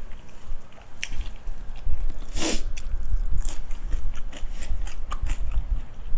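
A person chewing and crunching food close to the microphone, with many crisp clicks from the bites and one longer, louder crunch about two and a half seconds in.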